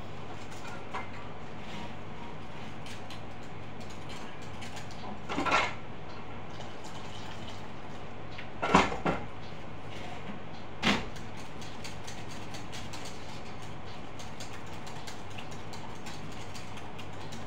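Steady low hum with four brief knocks or clatters: one about five seconds in, a double knock near nine seconds, the loudest, and one near eleven seconds.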